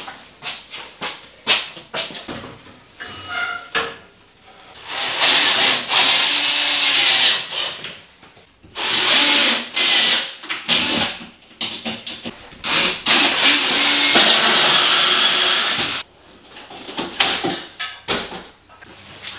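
A power drill running in three bursts of two to four seconds each, with knocks and clatter between them.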